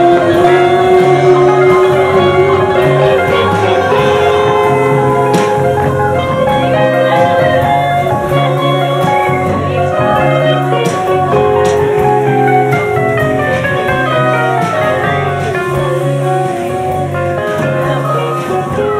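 A live band playing with electric guitar, banjo, saxophone and drums. Held notes in the first few seconds give way to quick falling runs of notes.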